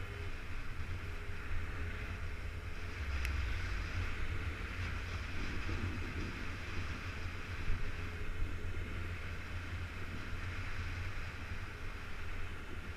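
Motorcycle running steadily on the move, with wind rumbling on the microphone.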